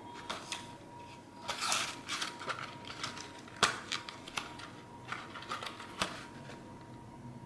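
Packaging being handled during an unboxing: a string of small clicks, taps and rustles, with the sharpest click about three and a half seconds in. Things go quiet after about six seconds.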